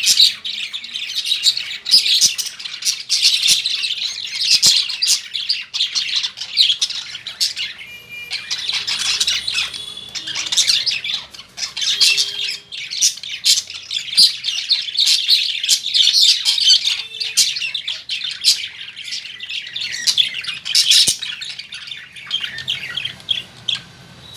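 Caged lovebirds chirping and squawking in rapid, continuous high-pitched chatter, with a brief lull about a third of the way through.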